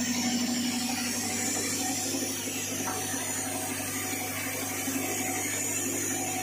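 Vibratory bowl feeder with linear track and hopper running: a steady electric hum with small metal parts rattling as they are shaken along.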